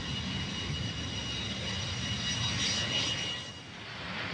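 Jet aircraft engines running: a steady high whine over a low rumble, the whine dropping away a little before the end.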